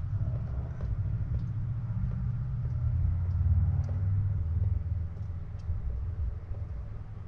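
Mercedes OM617 five-cylinder diesel engine running, a steady low clattering rumble that swells a little in the middle, with no exhaust system fitted.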